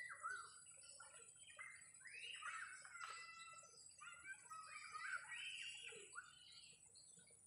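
Birds calling faintly, several curving whistled calls overlapping one another, with a thin steady high-pitched tone underneath.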